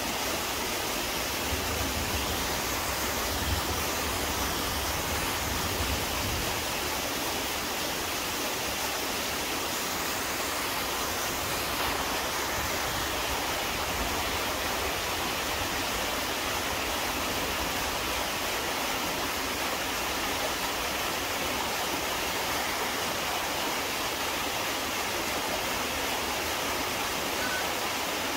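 Waterfall: a steady, unbroken rush of water falling and pouring over rock at Chilyeon Falls.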